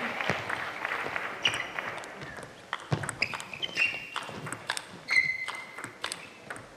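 Table tennis rally: the ball clicking off the paddles and bouncing on the table in an irregular run of sharp taps, with a few short high squeaks in between.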